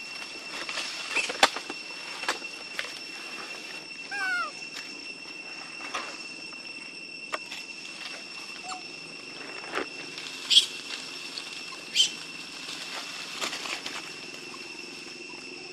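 Macaque troop ambience with a steady high-pitched drone. A brief squeaky gliding call comes about four seconds in, and there are a few sharp taps, the loudest just after ten seconds and at twelve.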